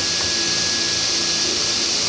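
Table saw running with its dust extraction, a steady whir and hiss with low hum, no cut being made.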